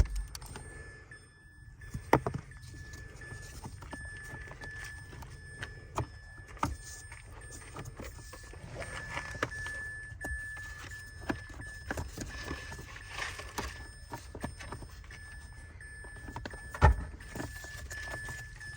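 Scattered plastic clicks and knocks from a car's glove box and cabin air filter cover being handled and unclipped, with one sharp knock near the end. A faint high tone sounds on and off.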